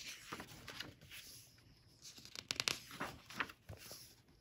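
Pages of a hardcover picture book being turned by hand: faint paper swishes and rustles, with a few quick crisp ticks of paper about two and a half seconds in.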